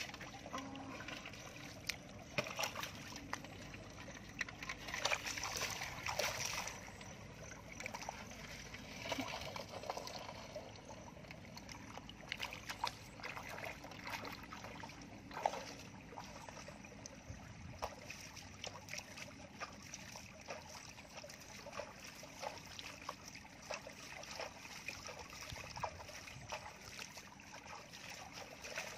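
Irregular splashing and sloshing of bare feet wading through shallow muddy water, with small knocks and splashes throughout, busiest in the first several seconds.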